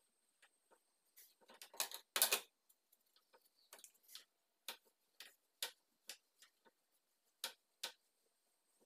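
Light, irregular taps and scratches of a hand-held graining tool against a painted wooden ceiling panel, about two a second, with a longer rubbing stroke about two seconds in.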